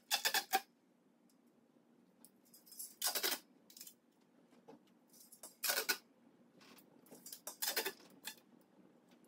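Gorilla tape being pulled off its roll in short ripping pulls, four main ones each under a second, as it is wrapped around a bicycle rim to tape it for tubeless tyres.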